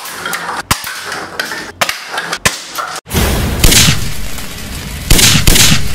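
A few sharp clicks of a plastic toy airsoft gun firing BBs at paper cups. About three seconds in, a loud logo-intro sound effect takes over: a deep boom with two hissing whooshes.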